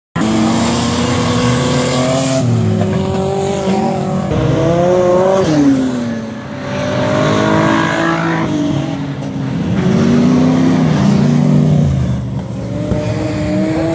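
Dirt-track race car engines revving and easing off as the cars lap the track, their pitch rising and falling over and over. The sound starts suddenly right at the beginning.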